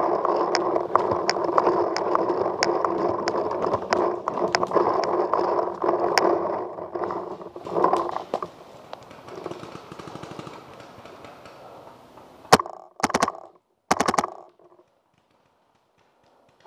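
Rustling and crunching of a paintball player moving over the forest floor, with many small sharp clicks, fading after about eight seconds as he settles behind a fallen log. A few sharp cracks follow in three quick groups a little later, then the sound cuts out to silence.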